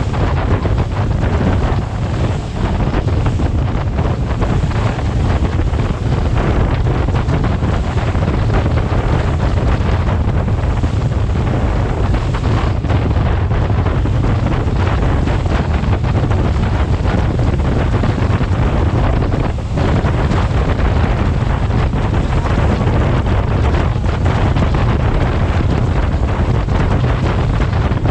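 Heavy wind buffeting the microphone aboard a boat under way, over the rush of water; a steady, unbroken noise, heaviest in the low end.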